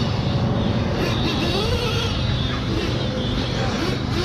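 Small nitro engines of 1/8-scale RC off-road buggies revving up and down as they lap the track, several cars at once, their high whine rising and falling through the gears and corners over a steady low drone.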